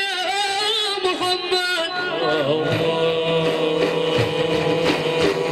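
Arabic devotional praise singing (madih) with ornamented, wavering vocal lines, giving way about two seconds in to long held notes over steady accompaniment.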